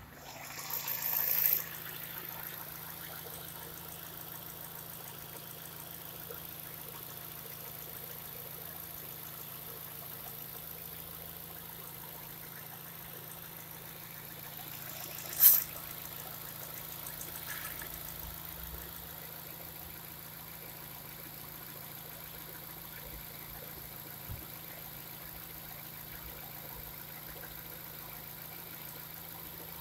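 Fiat Bravo's 1.6-litre 16-valve four-cylinder petrol engine (182A4000) idling steadily with the bonnet open. A louder rise comes in the first second or so, and a sharp brief noise about halfway through.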